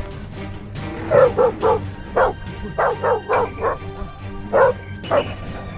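Pit bull dog barking, about ten short sharp barks in quick clusters starting about a second in, over steady background music.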